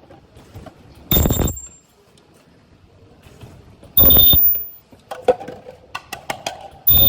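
Automatic rotary-table ultrasonic plastic welding machine cycling: three loud half-second bursts with a shrill high whine, about three seconds apart, each one a weld. Sharp mechanical clicks come in the gap before the last burst.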